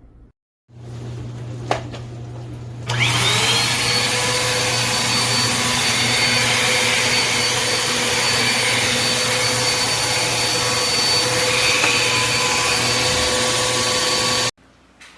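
Bissell CleanView Compact Turbo upright vacuum switched on: after a quieter hum and a click, the motor spins up with a rising whine about three seconds in. It runs steadily and loudly, then cuts off suddenly near the end.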